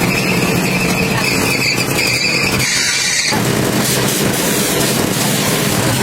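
A motor vehicle running loudly, with a steady high-pitched squeal over it that stops about three seconds in; the vehicle noise carries on after.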